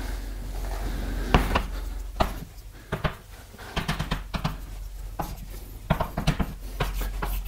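Handwriting an equation: irregular light taps and scratches of a writing tool, over a steady low electrical hum.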